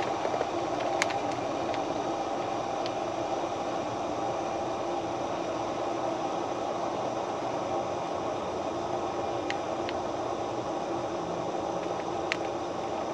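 Camp stove burner running with a steady roar, with a few light clicks over it.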